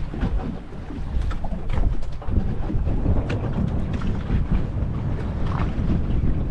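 Wind buffeting the microphone in the open air at sea, a steady low rumble, with scattered short splashes of water against the hull of a drifting boat.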